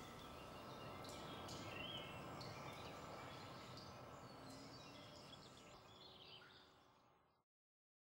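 Faint outdoor background noise with a few brief, faint bird chirps, fading out over the last seconds and ending in silence.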